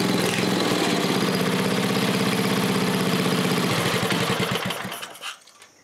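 A 5 hp horizontal-shaft small engine runs steadily, then is shut off a little under four seconds in, winding down and dying away to quiet within about a second and a half.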